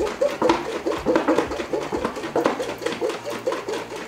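Liquid cream mixture sloshing in a mason jar that is being shaken hard to whip it, in a rapid, even rhythm of about four strokes a second.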